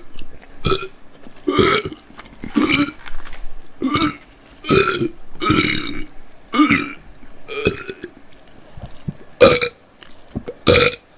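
A young woman burping over and over: about ten short, loud burps roughly a second apart, with the loudest near the end.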